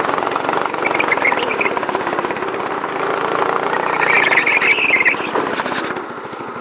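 Go-kart's small petrol engine running hard with a fast, rattling pulse. Brief tyre squeals come about a second in and again around four to five seconds in as the kart slides through corners.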